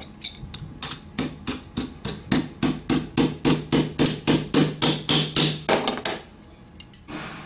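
Steel pliers tapping a metal frame clip onto a Columbia drywall angle head: a quick run of sharp metallic taps, about four a second, that stops about six seconds in.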